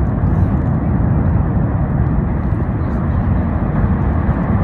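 Steady, deep rumbling roar of an erupting lava fountain at the Fagradalsfjall volcano, with no separate bursts or bangs.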